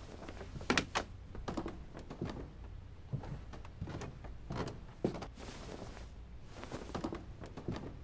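A cloth jacket being handled and lifted off a wall hook: an irregular run of short fabric rustles and light knocks, a few sharper ones about a second in and near the middle.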